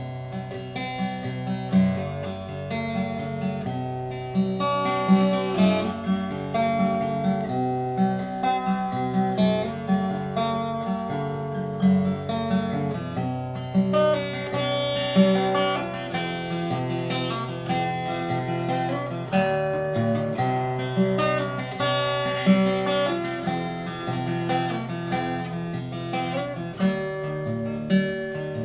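Steel-string acoustic guitar played solo, a continuous run of picked notes and chords in a sad tune.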